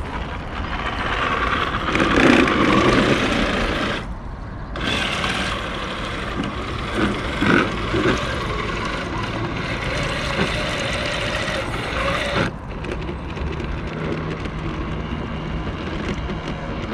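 HB Toys RC crawler truck driving: its small electric motor and gears whining under load, with tyres working over rough ground.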